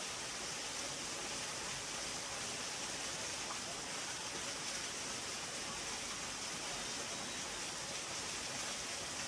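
Steady, even rushing of water, unchanging throughout.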